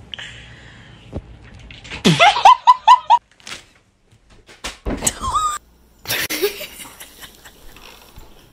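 High-pitched human laughter: a rising cry breaks into a quick run of about five short 'ha's about two seconds in. A few short knocks and a brief squeal follow.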